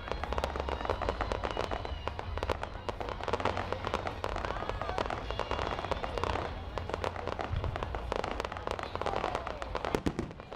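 Aerial fireworks exploding in quick succession: dense crackling and popping with many sharp bangs close together over a low rumble.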